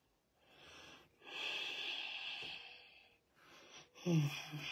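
A man breathing heavily while eating: a short breath, then a long noisy exhale lasting about a second and a half, then a brief voiced grunt near the end.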